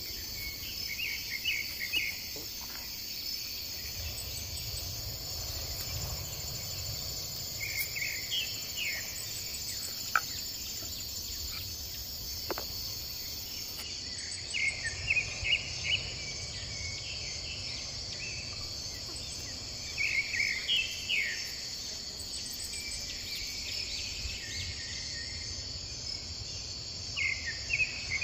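Steady, high-pitched chorus of insects, with short bursts of chirping calls every few seconds and a single sharp click about ten seconds in.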